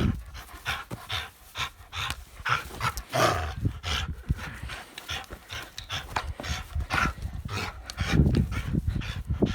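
A dog panting during play, with scuffling and rustling, and a louder scuffle near the end.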